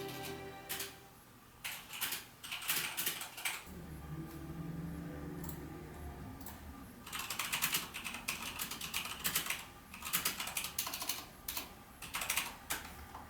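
Bursts of rapid clicking and tapping, dense in the second half, with a brief low hum in between.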